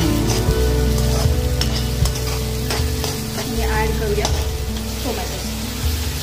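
Metal spatula stirring and scraping onions and capsicum frying in butter and oil in a metal kadhai, in short repeated strokes over a light sizzle. Background music with steady held tones runs underneath.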